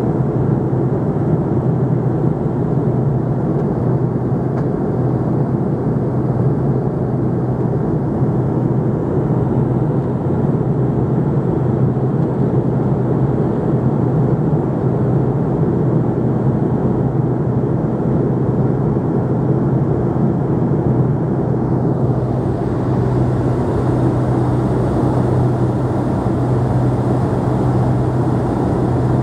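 Steady cabin drone of an MD-87 airliner in cruise, heard inside the cabin next to its rear-mounted Pratt & Whitney JT8D turbofans: rushing air noise over a steady low engine hum. A little over twenty seconds in, the hiss grows slightly brighter.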